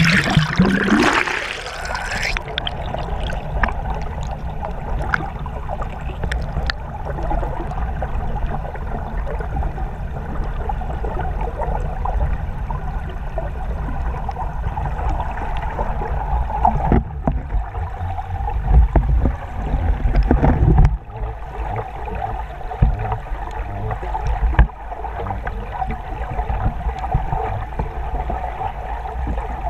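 River current heard through a submerged camera: a steady, muffled rushing of flowing water, dull and low with the high end cut off. In the first two seconds the sound is brighter and splashier, then turns muffled. Heavier low rumbles and knocks come around the middle and again a little later.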